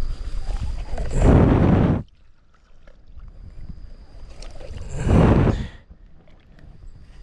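Sea waves washing in against the shore in repeated surges, one about a second in and another about five seconds in, with quieter wash between them.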